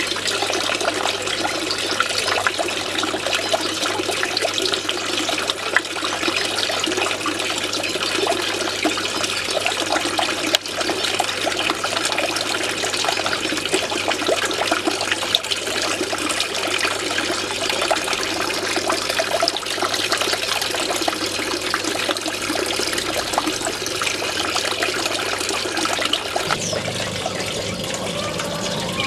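Water spilling over the edge of a stone fountain basin and falling into a fish pond: a steady splashing trickle.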